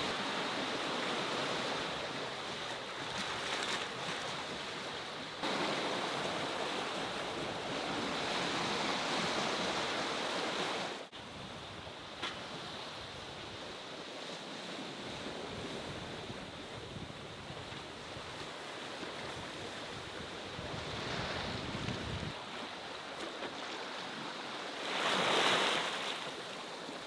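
Open-sea water and wind aboard a sailing ketch: waves washing and water rushing along the hull, with wind buffeting the microphone. The level drops sharply about eleven seconds in, and a louder surge of water comes near the end.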